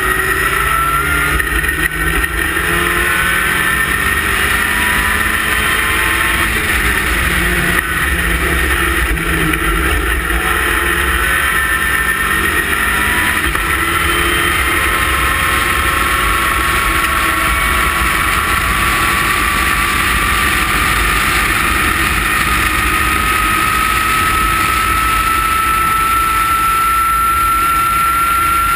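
Westfield race car's engine heard from the open cockpit at racing speed, its note rising and falling through the corners, then climbing steadily in one long pull near the end, with constant wind noise on the microphone.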